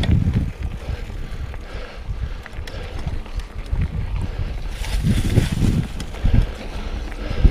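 Wind buffeting an action camera's microphone on a moving mountain bike, with a gusty low rumble of tyres on the trail and small clicks and rattles from the bike. A stretch of louder hiss comes about five seconds in.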